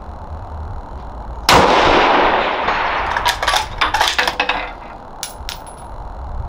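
A single shot from a 6.5 Creedmoor Bergara B14 bolt-action rifle about one and a half seconds in, its report ringing and echoing for over a second. It is followed by a quick run of metallic clicks as the bolt is worked to eject the case and chamber the next round, and two last clicks a little later.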